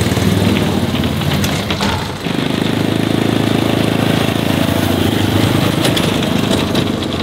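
Small engine of a kids' mini Jeep running steadily as it drives along towing a little camper trailer, with a fast even engine pulse and a brief dip about two seconds in.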